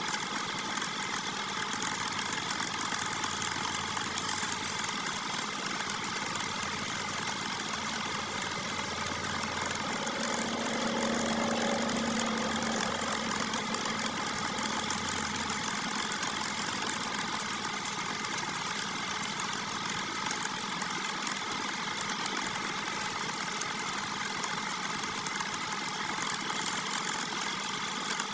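Wood lathe running steadily with a constant motor hum. It grows slightly louder, with an added lower hum, from about ten to sixteen seconds in.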